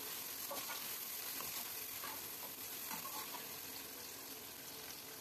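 Sliced onions sizzling in hot oil in a metal karahi, stirred with a metal ladle that scrapes lightly against the pan now and then. The frying is at its early stage, the onions still pale.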